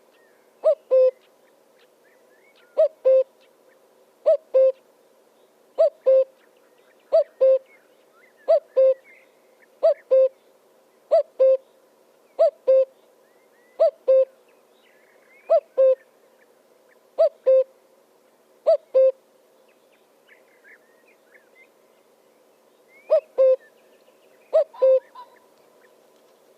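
A bird calling: a low two-note hoot, repeated steadily about every second and a half, with a pause of a few seconds near the end before two more calls.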